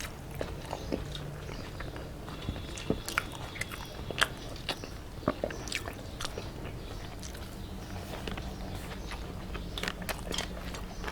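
Close-up eating sounds: chewing and biting on a meal of rice, omelette and curry, with irregular small clicks and smacks.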